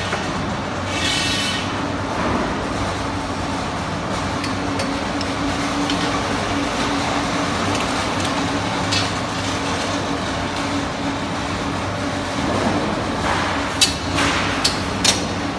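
Steady mechanical hum of an automatic angle-bar welding machine and its workshop, with a short hiss about a second in. Near the end come several sharp metallic clanks as a steel angle bar is handled and set into the machine.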